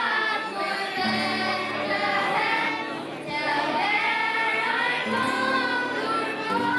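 Children's choir singing a song together, over low held accompanying notes that come in about a second in and change twice.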